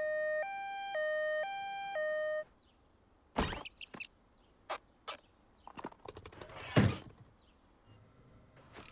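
Cartoon sound effects: a two-tone siren alternating high and low notes about once every half second, stopping about two and a half seconds in. After a short silence comes a loud hit with a warbling high whistle, a few clicks, and a rattling crash that ends in a thud near the end.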